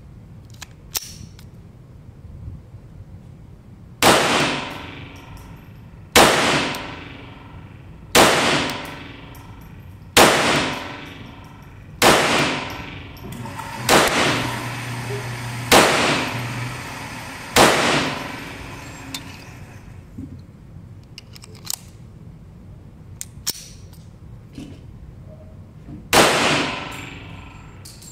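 Browning Buck Mark .22LR semi-automatic pistol firing: eight shots about two seconds apart, each ringing out in a long echoing decay, then a few small clicks during a pause of several seconds, and another shot near the end.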